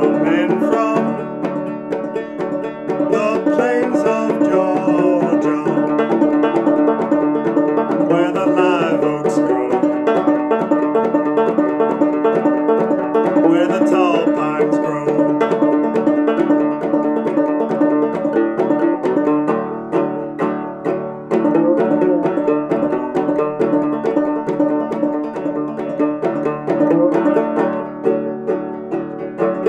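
Fretless banjo playing an old-time mountain tune: a plucked melody over steady ringing drone notes, with some notes sliding in pitch.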